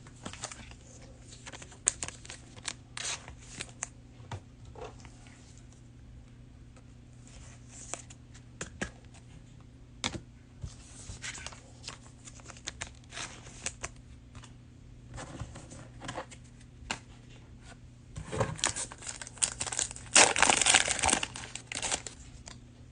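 Crinkling and tearing of a trading-card cello pack's plastic wrapper, with scattered light clicks and rustles of cards being handled; the loudest, densest crinkling comes near the end.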